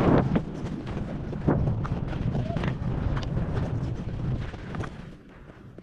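Skis or a board sliding and scraping over chopped-up, tracked-out powder at speed, with repeated sharp scrapes as the edges chatter over the bumps and wind buffeting the microphone. It is loudest at the start and dies down near the end as the rider slows.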